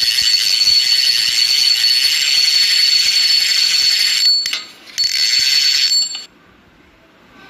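Logo-intro sound effect: a loud, dense high-pitched rattling hiss with a steady whistle-like tone through it. It breaks off briefly about four and a half seconds in, comes back, then cuts off about six seconds in, leaving a faint tail.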